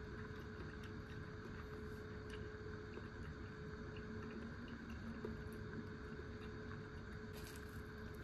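A steady low background hum with a faint constant tone, broken by a few faint clicks. Near the end comes a brief rustle as chopsticks lift a fried sardine cutlet from its plastic tray.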